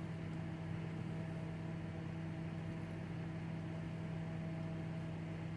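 A steady low hum of a running appliance, holding several fixed tones without change.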